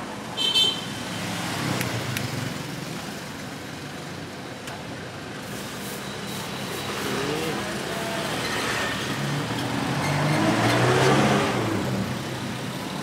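Road traffic going past, with a steady outdoor hiss; an engine swells and its pitch bends up and down around eight to eleven seconds in. There is a short high-pitched squeak about half a second in.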